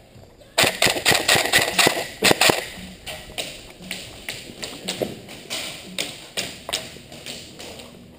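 A quick series of sharp knocks or snaps starts abruptly about half a second in. It is dense and loud for about two seconds, then slows to about three a second and grows fainter.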